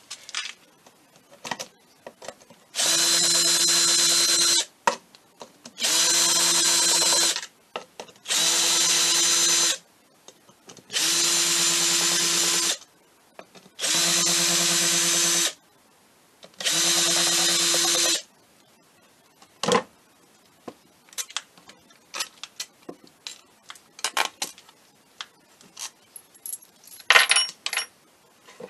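Cordless drill-driver run six times in short spurts of about two seconds each, a steady whine each time, spinning out loosened screws on a scooter engine's transmission side. Scattered light clicks and knocks follow.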